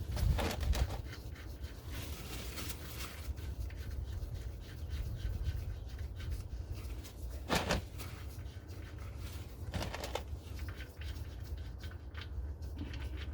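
Tools and hands scraping and clicking against the car's underside and the oil drain plug while the plug is being worked loose, with two sharper knocks, one about halfway through and another a couple of seconds later.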